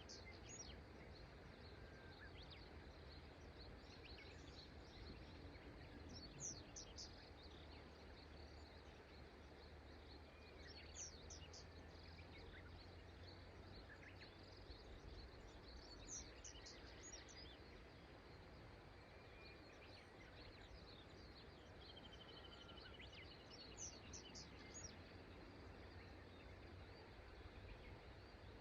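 Faint steady rush of river water, with a small bird repeating a short high-pitched song phrase every five seconds or so and a brief trill about two-thirds of the way through.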